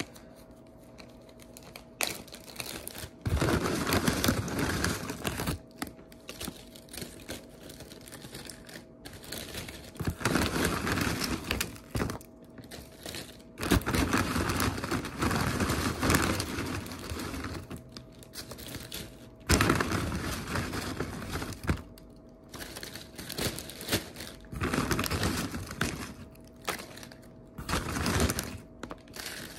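Rustling and crinkling of things being handled, in irregular bursts of a second or two with quieter gaps between.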